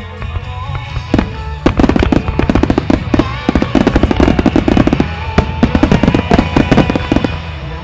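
A rapid barrage of firework shells launching and bursting, a dense run of bangs and crackles from about a second in until near the end, with music playing underneath.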